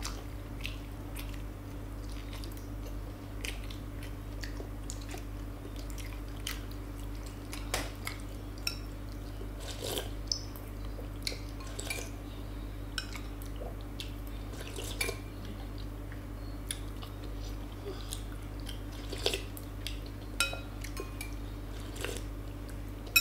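Metal spoons clinking and scraping against glass bowls of rice porridge in short, scattered clicks, a few ringing briefly, with chewing, over a steady low hum.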